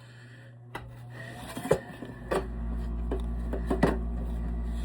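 A cover being fitted back over an electric water heater's thermostat access opening: rubbing and scraping with a few sharp clicks and knocks. From about halfway a steady low rumble runs underneath.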